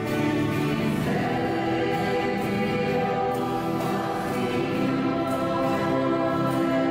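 Choir singing slow, sustained chords.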